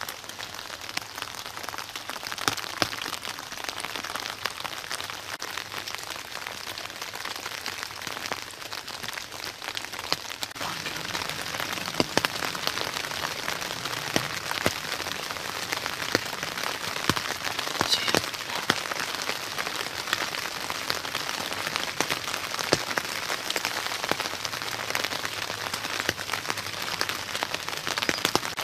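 Steady rain falling, with many single drops ticking sharply close by.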